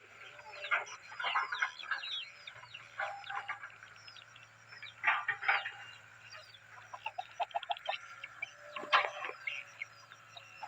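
Birds calling: many short falling chirps in irregular clusters, some overlapping.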